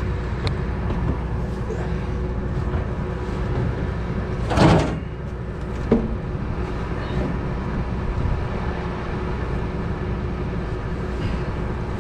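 A steady, low mechanical hum of a machine running, with a loud sliding metal scrape about four and a half seconds in and a sharp click about a second later, typical of a metal panel or shield being handled.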